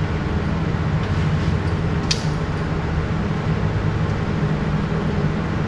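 A steady low machine hum with a single brief click about two seconds in.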